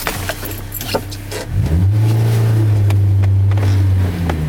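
Car engine revving up about a second and a half in, held at a steady high note for about two seconds, then dropping back near the end.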